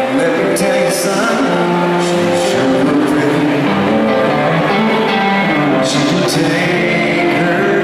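Live country band playing a slow ballad with electric guitar and singing, heard from within the audience.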